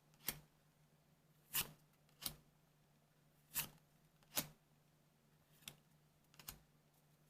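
Weiss Schwarz trading cards being flipped through one by one: faint, short snaps of card against card, about seven of them at uneven intervals.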